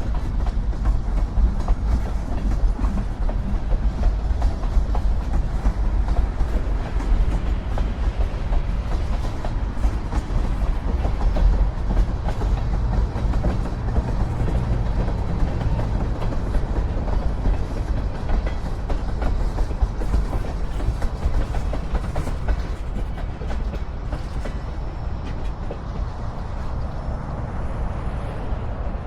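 Train rolling past with a steady low rumble and rapid clicking of wheels over the rails, easing off a little near the end.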